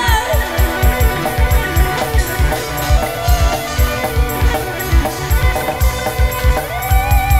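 Live dangdut band playing an instrumental passage through a loud PA, drums keeping a steady fast beat under keyboard and electric guitar. Near the end a held, wavering lead note comes in.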